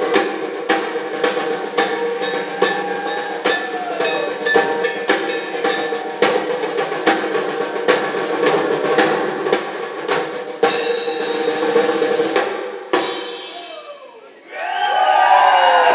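Live rock drum solo on a full drum kit: fast snare, bass drum and tom hits over a steady held note. It swells into a loud cymbal wash that cuts off sharply near the end, and cheering and whistles rise in the last second or so.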